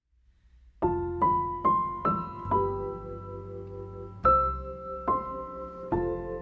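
Piano music: a slow tune of single struck notes, each left to ring, with a longer held note about halfway through.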